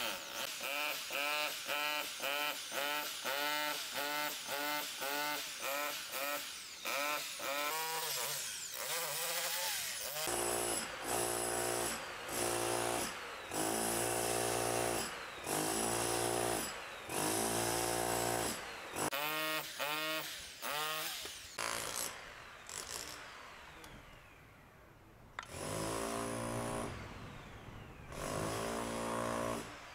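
Electric hammer drill boring into a plastered stone wall, running in quick repeated pulses for the first ten seconds or so, then in longer bursts with short pauses between them.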